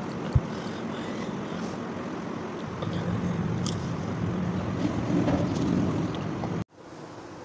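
Steady background noise with a sharp thump about half a second in. The sound cuts off abruptly near the end and comes back quieter.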